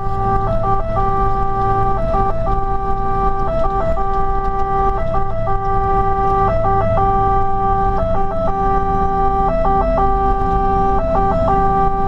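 Fire engine's two-tone siren heard from inside the cab, a lower tone broken about every second by short higher notes, over the steady rumble of the truck's engine running on the road.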